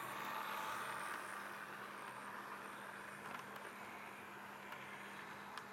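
HO-scale model train running past: the Piko BB 67400 diesel's can motor whirring and the coach wheels rolling on the track. It is loudest in the first second or so, then steadier, with a couple of sharp clicks, one about three seconds in and one near the end.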